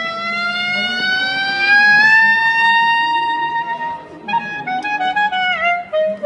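Solo clarinet: one long note sliding slowly upward in pitch in a glissando for about four seconds, then a short phrase of separate notes with bent, scooped pitches.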